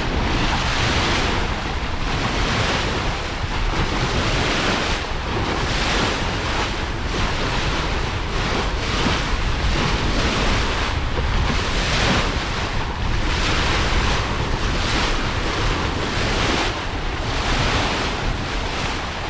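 Wind buffeting the microphone over the rush and splash of water along the hull of a Westsail 32 sailboat under sail, the hiss of the bow wave swelling in repeated surges every second or two.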